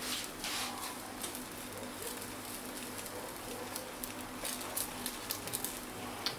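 Faint sizzling and scattered crackles of oat-bran pancake batter frying in a little hot olive oil in a non-stick pan, with a brief scrape of a metal spoon spreading the batter at the start.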